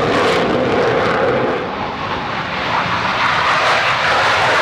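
Loud jet noise from a Panavia Tornado taking off on afterburner, its two RB199 turbofans running as a steady rushing roar. The noise dips briefly about two seconds in, then comes back up to full strength.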